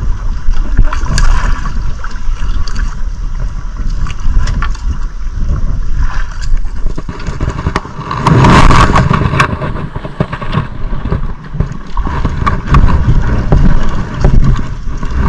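Steady wind rumble on an action camera's microphone aboard an outrigger boat. About eight seconds in, a louder rustle as a jacket sleeve brushes across the camera. Near the end come short clicks as the angler handles the spinning rod and reel.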